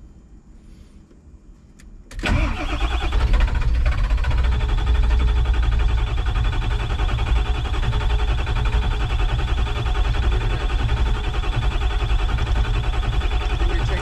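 Starter cranking a diesel engine with high-pressure-oil-pump injection, starting suddenly about two seconds in and churning steadily without the engine firing. This is a crank/no-start: the high-pressure oil pump is only reaching about 250 psi injector control pressure, short of the roughly 500 psi the injectors need to fire, which is put down to air in the oil system.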